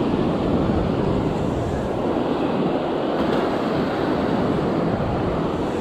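Steady rush of wind on the microphone mixed with the wash of surf breaking on the beach.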